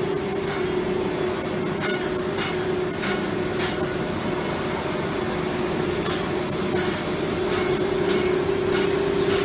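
CNC router's electric spindle running with a steady whine, with scattered sharp ticks over it.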